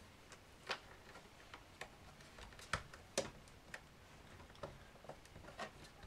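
Plastic cover strips on the base of an HP 15 laptop being pressed back into place by fingers, giving faint, irregularly spaced sharp clicks as they seat.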